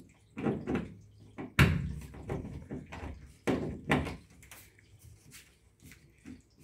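Screwdriver tightening the mounting screws of a plastic old-work electrical box set in drywall, with the box's wings pulling against the sheetrock. It gives a run of irregular plastic clicks and knocks, the loudest about a second and a half in, fading to small ticks after about four seconds.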